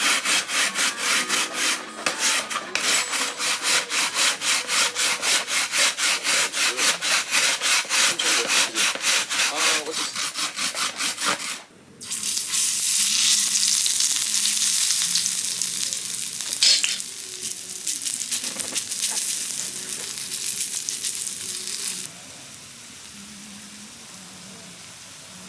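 A fast run of rasping strokes, about three or four a second, for roughly the first half, then a dense sizzling hiss for about ten seconds that drops to a quieter steady hiss near the end.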